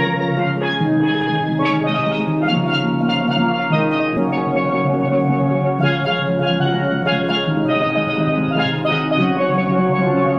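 Instrumental background music with bright melodic notes over a steady chordal accompaniment, and no singing.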